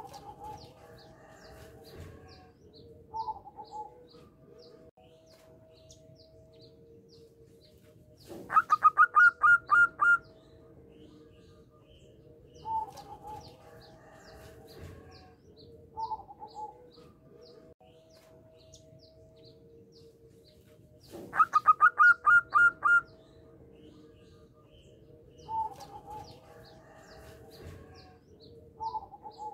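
Zebra dove singing: twice, about thirteen seconds apart, a fast run of about eight clipped cooing notes. Softer single coos come in between, with faint high chirping in the background.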